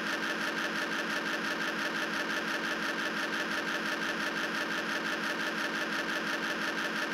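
Film projector sound effect: a steady, fast, even mechanical clatter that starts suddenly.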